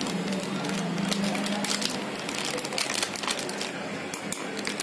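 Foil spice packet crinkling and a steel spoon scraping and clicking against a stainless steel mixer jar as red chilli powder is spooned in over garlic cloves, with several sharp clicks scattered through.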